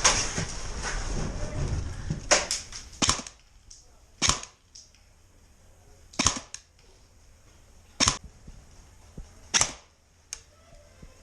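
Airsoft guns firing single shots, about nine sharp cracks one to two seconds apart at an irregular pace. A rustling noise runs through the first two seconds.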